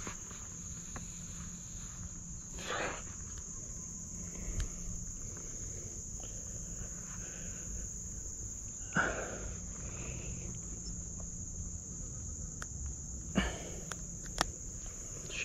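Steady high-pitched chorus of insects, with a few brief rustling noises about three, nine and thirteen seconds in.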